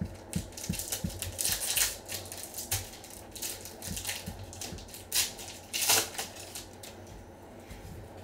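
Trading card packs and cards being handled: a run of light clicks and taps as cards are slid and set down, with crinkling wrapper rustles about two seconds in and again near the six-second mark.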